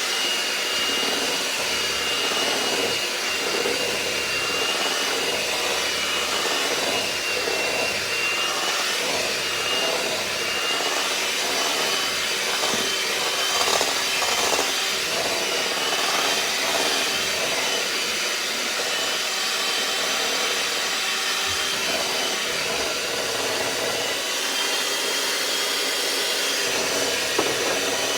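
Electric mixer running steadily at speed, beating cake batter: a continuous motor noise with a thin high whine that wavers slightly.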